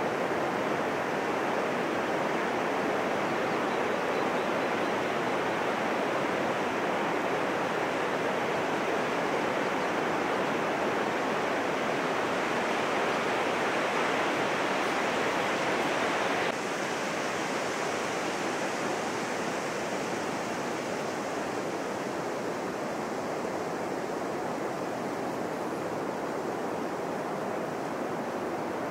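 Rough post-typhoon surf breaking on a sandy beach: a steady, continuous roar of waves. It drops abruptly to a slightly quieter level a little over halfway through.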